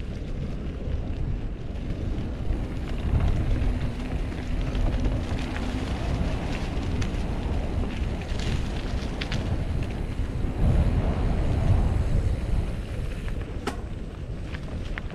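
Mountain bike being ridden along a dirt trail: wind buffeting the action camera's microphone over the rumble of the tyres on the ground, with a few sharp clicks and rattles from the bike.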